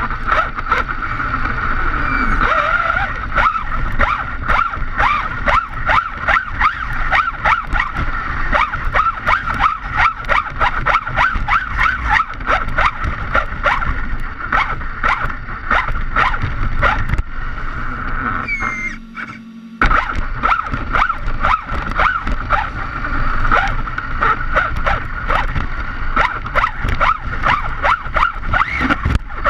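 Onboard sound of an Arrma Big Rock RC truck on a 6S conversion with a 2050kv brushless motor running hard: a steady motor whine over tyres on rough asphalt, with constant crackle from grit and wind against the chassis-mounted camera. About two-thirds of the way through it drops for about a second, then comes back abruptly.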